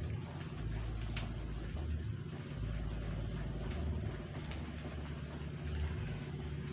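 Steady rain, an even hiss with the odd sharper tick of a drop, over a deep low rumble that swells and eases every second or two.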